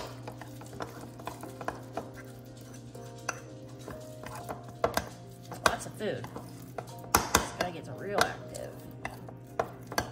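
A metal fork stirring thick sourdough starter in a ceramic bowl, clinking irregularly against the bowl's sides, with a few louder clinks in the second half. A steady low hum runs underneath.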